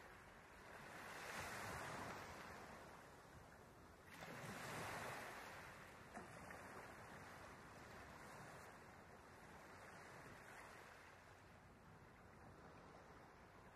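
Faint wash of ocean waves, a soft hiss that swells twice early on and then settles to a low steady level.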